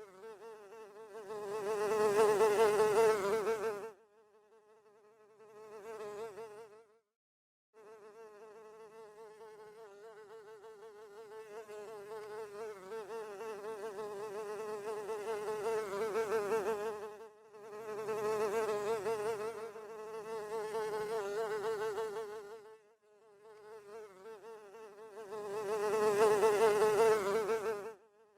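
Housefly buzzing in flight, a wavering whine that swells loud and fades again several times as it passes close and moves off. It stops briefly about seven seconds in, then resumes.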